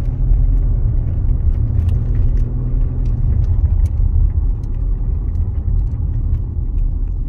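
Steady low rumble of a car driving up a hill road, heard from inside the cabin.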